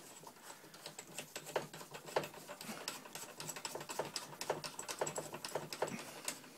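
Quick, irregular small metallic clicks and taps as a sleeve is fitted and turned by hand on the tube of a MEC Junior Mk 5 shotshell press, stopping near the end.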